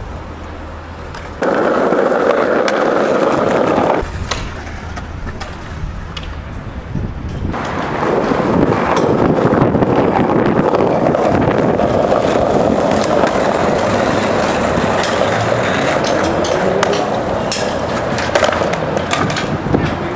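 Skateboard wheels rolling over stone paving and concrete, a rough rolling noise, with sharp clacks of the board striking the ground now and then. The rolling gets louder about a second and a half in, drops back at about four seconds, and rises again at about eight seconds.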